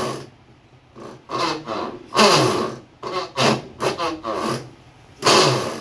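Consul 9 kg top-load washing machine agitating with a repeated rasping 'reco, reco' grind, one burst with each stroke of the agitator. The technician takes this for a worn gearbox (transmission) assembly that has lost its grip on the pulley.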